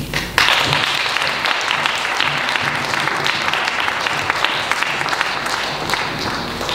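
Audience applauding: dense, steady clapping that starts right after the last spoken line and thins a little near the end.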